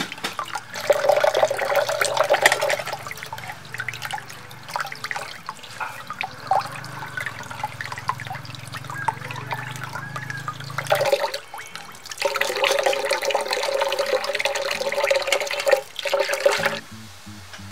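Tap water running and splashing over a fish being rinsed by hand. It is louder for a couple of seconds near the start and again for several seconds later, then cuts off shortly before the end.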